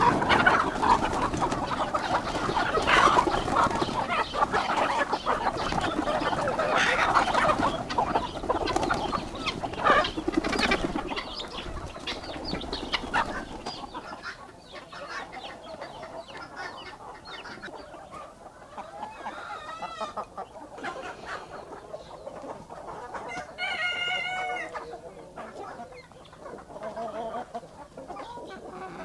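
A large flock of backyard chickens rushing out of the opened coop: dense clucking and squawking with scuffling and wing flapping, loudest for about the first half. Then quieter clucking as they feed, with a rooster crowing about two-thirds of the way through and again shortly after.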